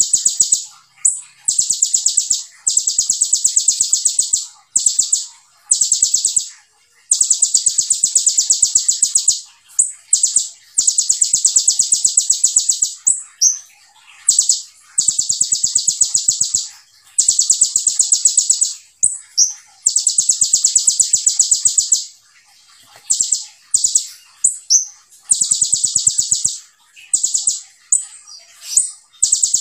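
A male kolibri ninja (Van Hasselt's sunbird) singing in full song. It gives very fast, high-pitched rattling trills in bursts of one to two seconds, repeated again and again with short pauses: the tight 'tembakan' bursts that bird keepers prize.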